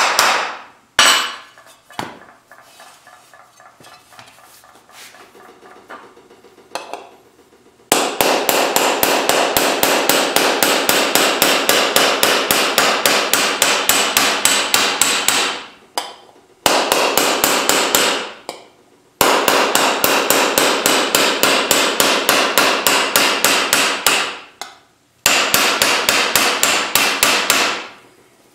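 A hammer is rapidly striking a hand-held steel punch against 16-gauge cold-rolled steel sheet resting on a sandbag. This is hand-shaping a fender blank. The blows come at about six a second, in runs of several seconds with short pauses, and there are only faint light taps for a few seconds near the start.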